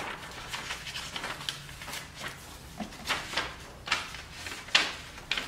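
Paper template being peeled off a car's rear bumper fascia and handled: a run of short paper rustles and crinkles, the loudest near the end.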